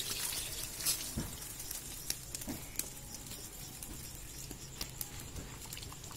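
Wet fish being handled and cleaned in a plastic basin: scattered light taps and clicks over a steady hiss, with a few sharper ticks.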